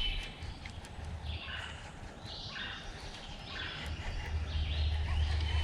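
A bird singing the same short phrase again and again, over a low rumble that grows louder near the end.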